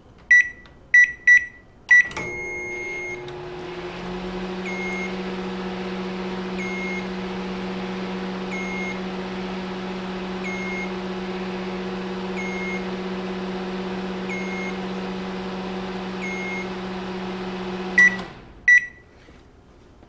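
LG microwave oven with its cover off, started from the keypad: four quick beeps, then the oven runs with a steady hum whose lowest tone rises briefly as it comes up to speed, for about sixteen seconds, before it stops with two more beeps. The run shows the relay working and mains voltage reaching the primary side of the high-voltage transformer.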